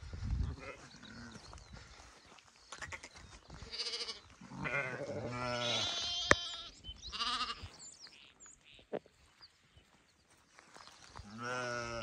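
Sheep and lambs in a grazing flock bleating: several separate calls, some of them wavering, with a loud one near the end. A single sharp click comes about six seconds in.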